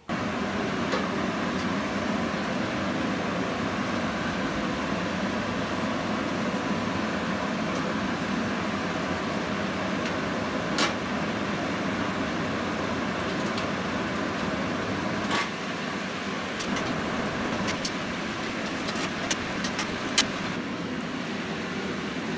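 A steady mechanical running noise, like a workshop machine, with a few sharp light metal clicks and taps about halfway through and near the end.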